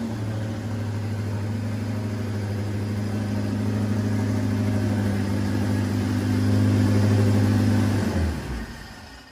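Turbocharged Honda B20 VTEC four-cylinder running under load on a hub dyno, held at a steady pitch and slowly getting louder. About eight seconds in it shuts off and dies away.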